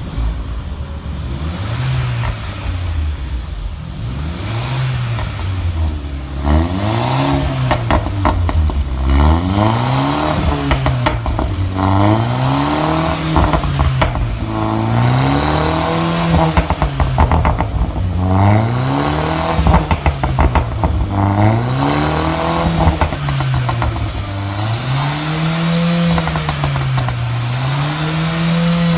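Mercedes A-Class engine revved over and over through a valved Valvetronic exhaust, the revs rising and falling about once every two seconds, with a rattle of exhaust pops and crackles as the revs drop.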